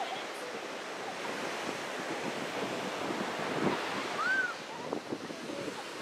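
Steady wash of ocean surf mixed with wind on the microphone, with a brief high call about four seconds in.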